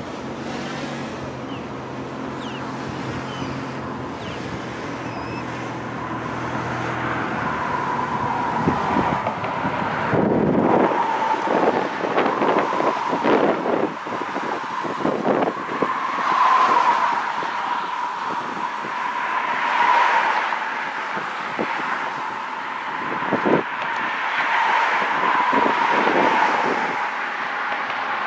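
Car on the move: engine hum and road noise, which grow louder as it picks up speed about eight seconds in. From then on a steady whine sits over the rush of tyres and wind, with occasional gusts.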